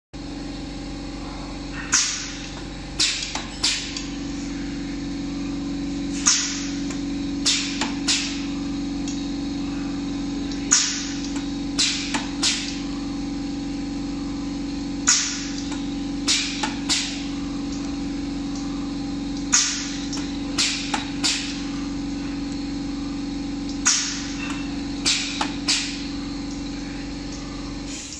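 Automatic glue dispensing machine running with a steady hum. A repeating cycle of sharp clicks comes about every four seconds: one loud click followed by a cluster of smaller ones as the dispensing head works through the parts.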